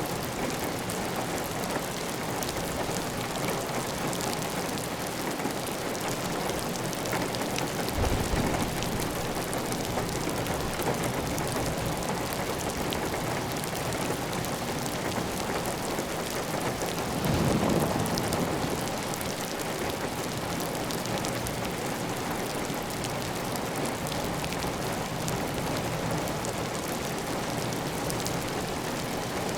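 Heavy, steady rain pattering on a clay-tiled roof, with water running off the roof edge. Two brief louder low surges break the even hiss, a short one about eight seconds in and a longer one of about a second near the middle.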